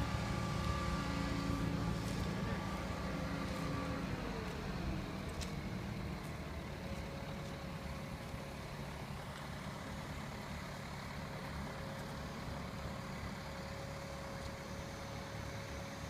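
A heavy engine running. Its pitch drops about four seconds in, and it then carries on at a lower, steady pitch.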